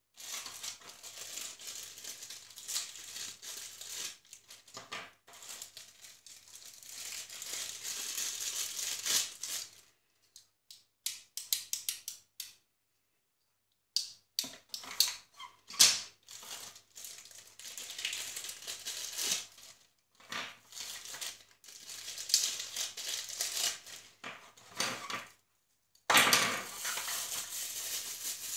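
Thin plastic bags and a clear plastic packaging tray crinkling as they are handled and unwrapped, in irregular bursts with scattered clicks from small plastic parts. The sound stops for about a second and a half past the middle.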